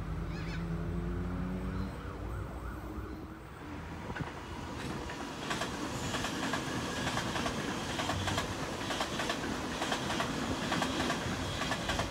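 Sydney Trains Waratah electric train passing. For the first few seconds its traction motors give a whine that rises in pitch. Then its wheels run through with a steady rush and regular clicks, about two a second, over the rail joints.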